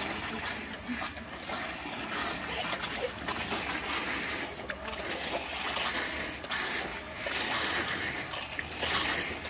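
Water trickling and splashing from the thin spouts of a metal mineral-water fountain into its metal petal basins, a steady splashing noise.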